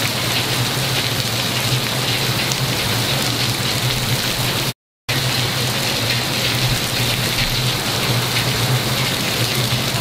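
Heavy rain pouring down hard in a steady, dense hiss during a severe thunderstorm. The sound cuts out completely for a moment just before halfway.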